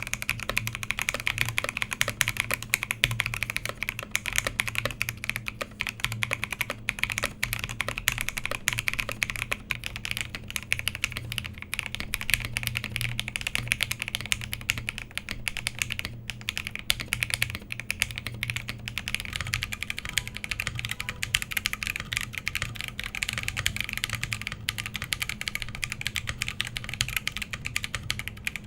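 Steady, fast typing on the Scarlet TKL, a CNC-aluminium-case custom mechanical keyboard, in its modded state: a quick run of many sharp keystrokes a second.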